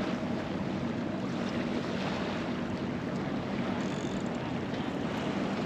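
Steady wind on the microphone with surf washing against the jetty rocks.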